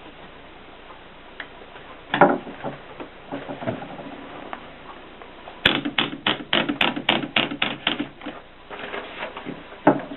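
AEG Mignon 4 index typewriter being typed on, with a loud clack about two seconds in and a few scattered clicks. In the second half comes a quick even run of about ten strikes, some five a second, followed by a few more clacks near the end.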